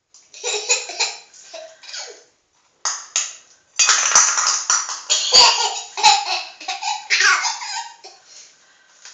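Young child laughing in short bursts, then in a long, loud stretch from about four to eight seconds in.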